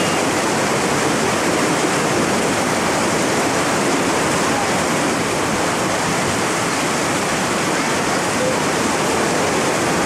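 Mountain creek rapids: white water rushing steadily over and between boulders in a small cascade, an even, unbroken rush.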